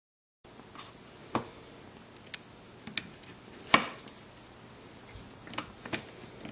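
Quick-Grip one-handed bar clamps being fitted and tightened over a glued corner block: scattered clicks and knocks of plastic clamp parts against wood, the loudest just after the middle.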